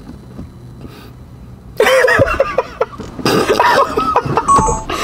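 Loud wordless vocal sounds from people's voices, starting suddenly about two seconds in after a quiet pause and going on in overlapping bursts to the end.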